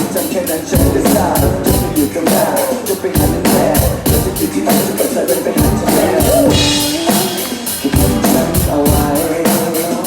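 Pop band music in an instrumental passage without singing: a steady drum-kit beat of about four hits a second, with bass drum, under a melodic instrumental line.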